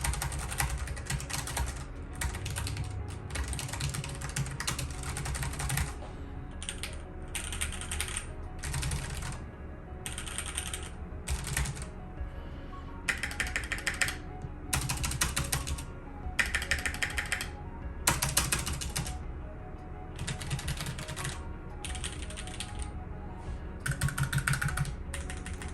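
Typing on a mechanical keyboard: a fast run of key clicks, then short bursts of keystrokes separated by brief pauses. Background music plays underneath.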